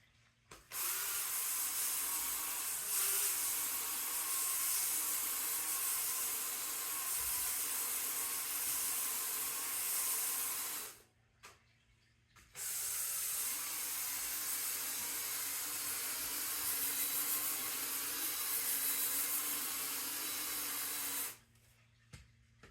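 Cordless drill spinning a scrubbing brush against a surface: a steady hissing whir that runs for about ten seconds, stops briefly, then runs again for about nine seconds before cutting off.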